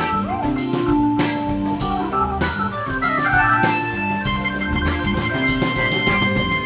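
Hammond organ taking the lead in a live band jam, playing held and shifting chords and lines over electric bass and a drum kit with steady cymbal and drum hits.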